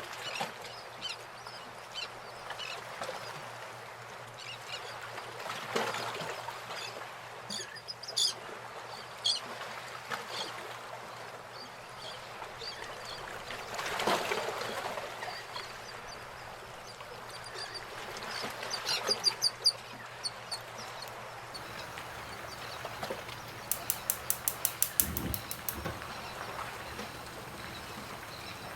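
Birds calling over a steady low hum, with scattered clicks and knocks and a quick run of about a dozen clicks near the end.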